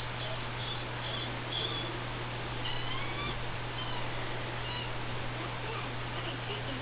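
Guinea pigs squeaking: a series of short, high squeaks, some gliding up or down in pitch, over a steady low hum and hiss.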